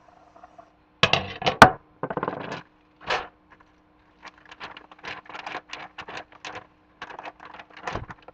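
A loud clatter about a second in as the metal pizza pan is set down on the counter, then a run of short crinkles from the plastic wrapper of a store-bought pizza crust being handled and opened.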